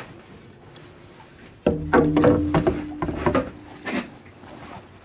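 A wooden boathook knocking down onto an aluminium boat's bow deck, starting suddenly a little under two seconds in. The hull rings with a low steady hum for about a second and a half under a handful of sharp knocks.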